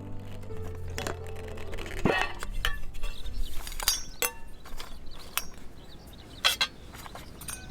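Hard objects clinking and knocking a few times at irregular moments, the loudest with a dull thud about two seconds in, over faint outdoor background.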